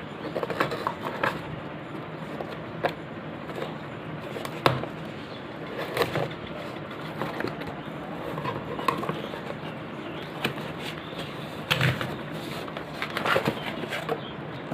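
Product box being handled, giving scattered clicks and knocks at irregular times over steady background noise.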